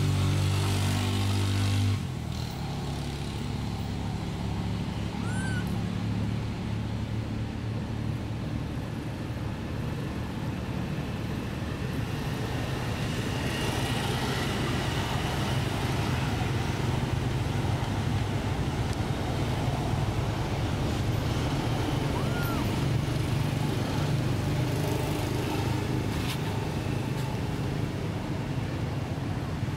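Steady low hum of an engine running, its pitch shifting slightly about two seconds in, with a couple of faint, short high chirps over it.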